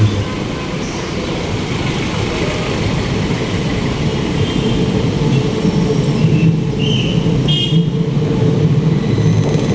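Road traffic noise with a steady low rumble, and a couple of short vehicle horn toots in the second half.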